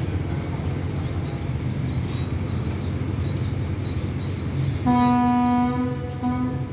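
Train horn sounds about five seconds in: one long single-pitched blast, then a short second one, over the steady low rumble of the train standing at the platform.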